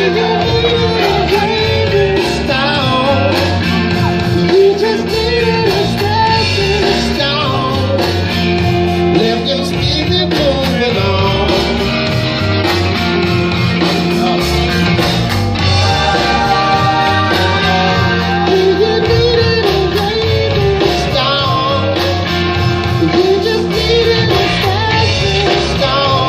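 Music: a rock-tinged band passage with guitar and a bending melody line over a steady bass, with no rapping.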